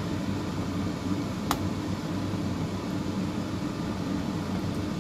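A steady low mechanical hum, like a kitchen fan, with the scrape of a large metal spoon working through a vegetable and egg mixture and one sharp clink of the spoon against the dish about one and a half seconds in.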